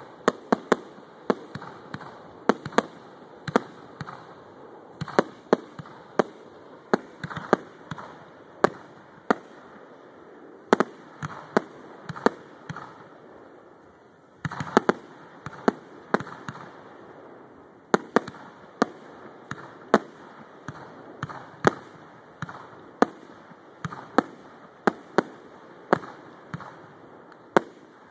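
Aerial fireworks going off in rapid succession: sharp bangs of launches and bursting shells, about one to two a second, with a short lull about halfway through.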